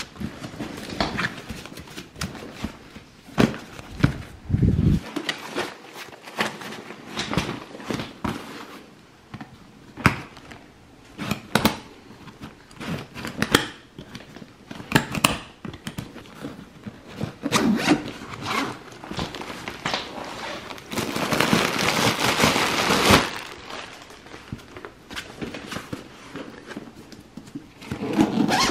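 A backpack's fabric and fittings being handled: fabric rustling and many short clicks and knocks from straps and hardware. About two-thirds of the way through comes a steady two-second rasp, a zipper being pulled open.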